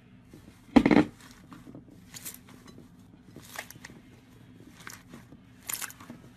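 Slime being squeezed and stretched by hand: one loud crackling burst about a second in, then softer crackles roughly every second and a half.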